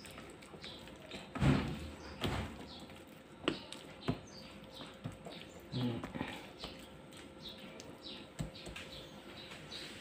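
Hands pressing and rubbing salt and black pepper into raw beef steaks on a plate, with a few soft thumps, the loudest about one and a half seconds in and again near six seconds. Faint high chirps recur throughout.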